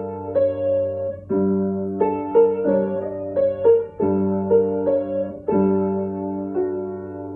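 Piano-voiced keyboard played slowly: held chords with a simple melody of single notes over them, quicker notes in the middle, and a last chord struck about five and a half seconds in that rings and fades.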